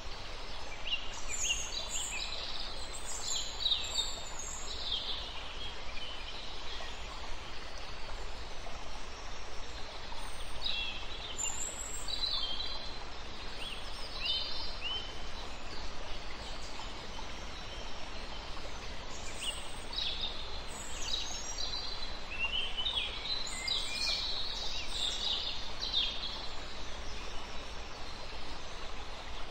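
Birds chirping and calling in several clusters of short notes over a steady hiss of outdoor ambience.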